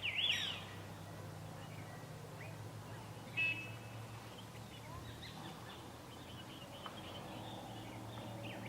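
Birds chirping: a loud sweeping call at the start, a short harsh call about three and a half seconds in, and a run of quick, faint chirps after it, over a low steady hum.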